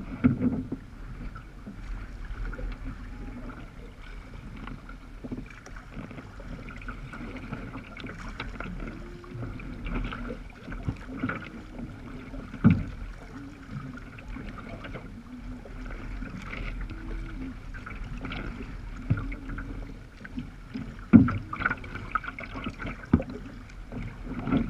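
Sea kayak moving through choppy water, heard from its bow deck: waves splash and slap against the hull in an irregular wash, with a few sharp, louder slaps standing out.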